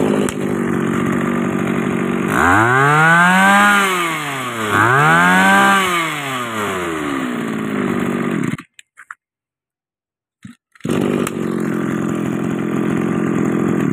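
Mitsubishi TB23 brush cutter's small two-stroke engine idling, then revved twice in a row, each rev rising in pitch and falling back to idle. The sound drops out abruptly about two-thirds of the way through and comes back at idle about two seconds later.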